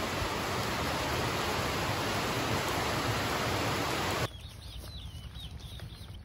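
Steady, loud rain hiss that cuts off abruptly about four seconds in, leaving a quiet yard where birds chirp.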